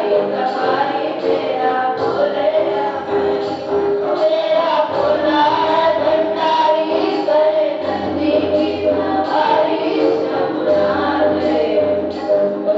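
A group of students singing in chorus, accompanied by an electronic keyboard and a steady percussion beat.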